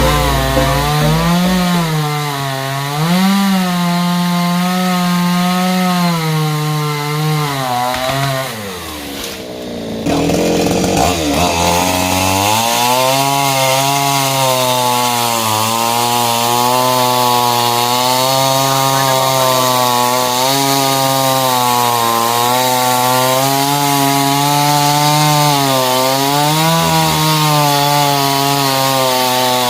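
Two-stroke chainsaw running at high revs, its pitch wavering as it cuts into wood. About nine seconds in the revs drop right down, then pick back up and hold.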